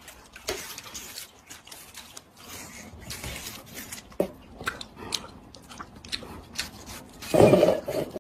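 Wet crunching of watermelon flesh as a cat and a person bite and chew the same slice: irregular crisp crackles, with a louder crunch near the end.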